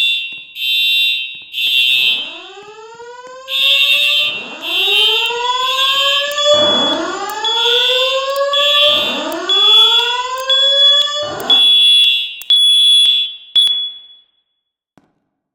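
Fire alarm system sounding its evacuation tones: a high-pitched alarm tone pulsing on and off, joined about two seconds in by a rising whoop tone that repeats every couple of seconds. All of it stops abruptly about fourteen seconds in.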